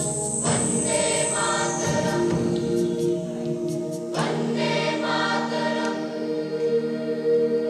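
Choral music: a choir singing sustained chords, with new chords entering about half a second in and again about four seconds in.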